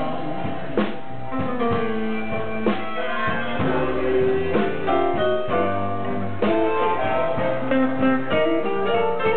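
Live blues band playing: guitar and piano over drums, with harmonica, the notes dense and steady in level.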